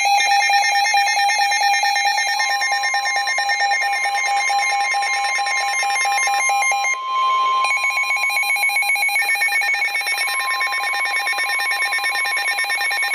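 NOAA Weather Radio emergency alert for a flash flood warning: the harsh, rapidly warbling data tones of the SAME alert header, with the steady 1050 Hz warning alarm tone coming in about two seconds in and sounding over them.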